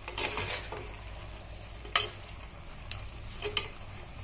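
A metal spoon stirs chunky chicken pieces in a clay pot, scraping through the thick mixture and knocking against the pot's sides in a few sharp clicks, the loudest about two seconds in.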